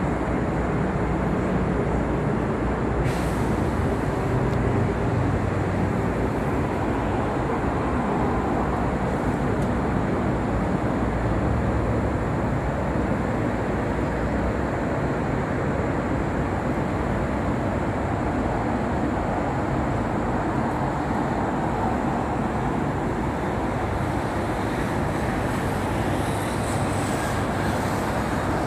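Steady hum of distant road traffic, an even rumbling wash with no single vehicle standing out, and a short click about three seconds in.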